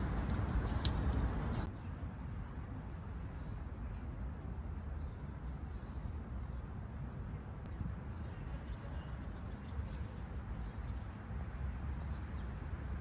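Outdoor park ambience: a steady low rumble of wind on the microphone with faint, scattered bird chirps. It drops to a quieter level about two seconds in.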